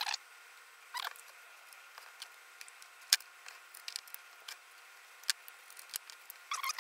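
Scattered small clicks and taps of a thin screwdriver and fingers working on the metal lens mount and plastic housing of a camcorder's CCD block during disassembly, with one sharp click about three seconds in. Squeaky chirping sounds begin right at the end.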